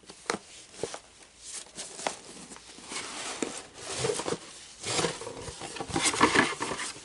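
Cardboard mailer box being opened and its contents handled: scattered taps and clicks, then paper and card rustling, loudest near the end.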